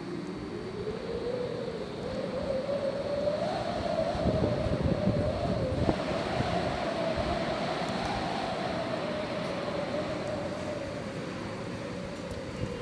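Heavy wind howling: a whistling tone that slowly rises and falls in pitch over a rumbling rush. The rush swells about four seconds in and eases off toward the end.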